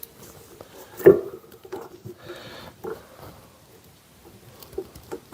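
Handling noise: a sharp knock about a second in, then scattered light knocks and rubbing.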